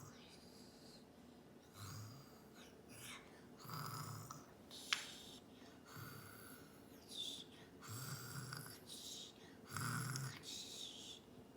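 A toddler fake-snoring: a low snore about every two seconds, each with a breathy hiss. There is one sharp click about five seconds in.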